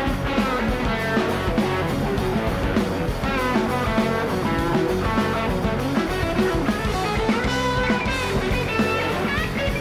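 Rock music with guitar, playing steadily without a break.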